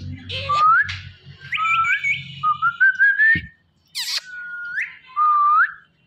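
Indian ringneck parakeet whistling: a string of about five short whistles, most gliding upward in pitch.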